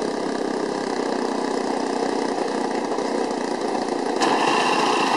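Small RC model airplane motor running with a steady buzz, growing louder about four seconds in.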